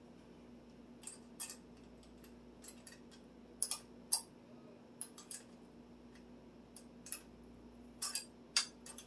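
Irregular sharp clicks and small taps, about a dozen spread unevenly, from bicycle rack parts and tools being handled during disassembly. A faint steady hum lies underneath.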